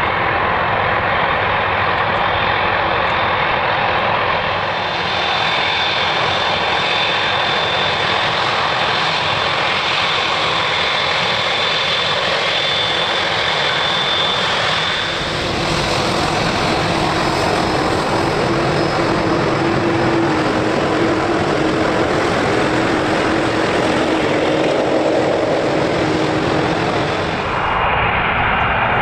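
Jet airliner engines at takeoff thrust: a loud, steady roar with a high whine. About halfway through, the whine gives way to a lower steady tone.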